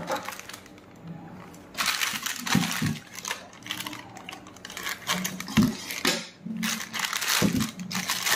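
Plastic packaging crinkling and rustling in irregular patches as a new motorcycle clutch assembly is pulled out of its bag, with a few short metallic knocks and clinks from the assembly being handled.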